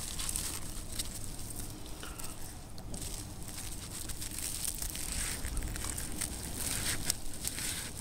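Crinkling, rustling handling noise with many scattered sharp clicks, from a catfish being handled and put into a floating mesh fish basket beside a kayak.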